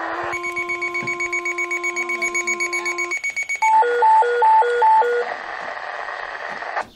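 Fire department two-tone paging tones coming over a Motorola HT1000 radio's hissing open channel while a Minitor pager sounds its rapid pulsing alert beep. About halfway in, a loud high-low alternating alert tone plays about four times. It gives way to plain channel hiss, which cuts off just before the end.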